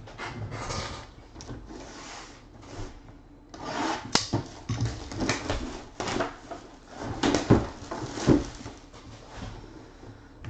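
Plastic shrink-wrap crinkling and tearing as it is stripped off a cardboard box, with a few sharp knocks as the box is handled.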